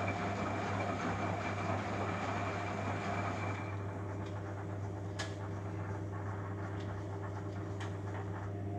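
Beko Eco Care WMA 1510 W washing machine running mid-cycle: a steady low motor hum with the wash churning over it. A higher whine drops out about a third of the way in, and two sharp clicks come in the second half.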